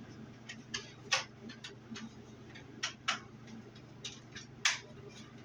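Sharp, irregular plastic clicks and knocks from a scope being fitted onto an X-Shot toy foam-dart blaster, the loudest a little after one second and about a second before the end.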